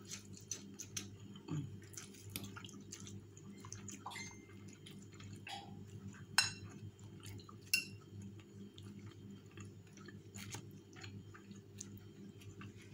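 Someone eating crunchy cornflake-crusted baked chicken: scattered small crunches and clicks, with a few louder ones about midway, over a steady low hum.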